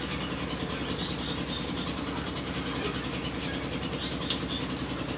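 A steady low engine-like hum, running evenly with no change.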